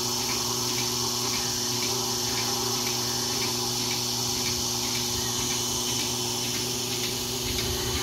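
Milking machine's small petrol engine and vacuum pump running steadily, with a faint rhythmic click about twice a second from the pulsator.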